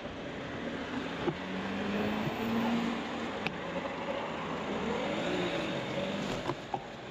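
A white panel van's engine and tyres on a wet road as it drives past close by, the engine note rising and then falling, with a few sharp clicks.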